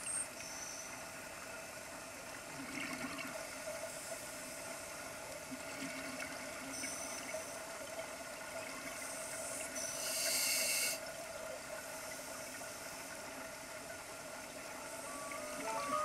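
Underwater sound of scuba divers breathing through regulators: muffled bubbling and hissing of exhaled air, with a louder hiss of bubbles about ten seconds in, over a faint steady hum.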